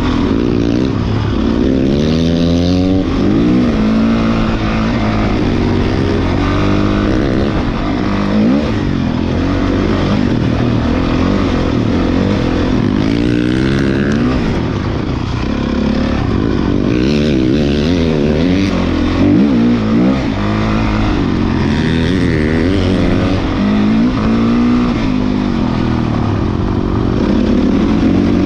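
Dirt bike engines revving, their pitch rising and falling over and over as the bikes accelerate and shift, with more than one engine often heard at once.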